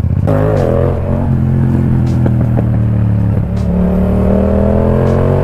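Yamaha MT-07's parallel-twin engine through a full Akrapovic exhaust, running under way with its note rising steadily over the last two seconds as it accelerates.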